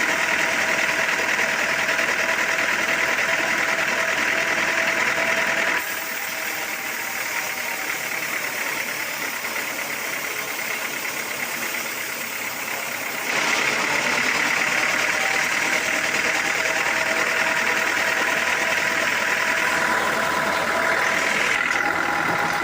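Sawmill machinery running steadily: a motor drone with a high whine over it. The sound drops abruptly about six seconds in and comes back just as abruptly about thirteen seconds in.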